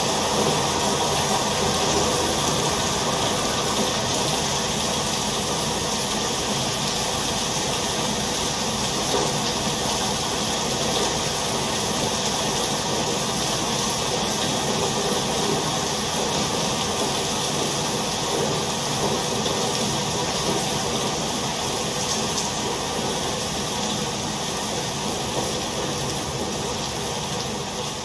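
Steady rain, a dense even hiss, growing a little quieter near the end.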